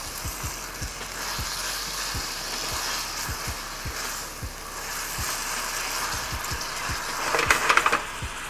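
Spaghetti and garlic sauce sizzling in a hot skillet as it is tossed with tongs, with soft knocks of the tongs against the pan about twice a second. A louder clatter of tongs on the pan comes near the end.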